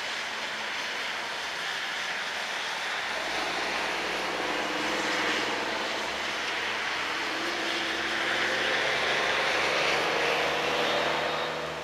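A steady engine drone whose pitch drifts slightly, growing louder through the middle and dropping away sharply near the end, over the steady hiss of rain.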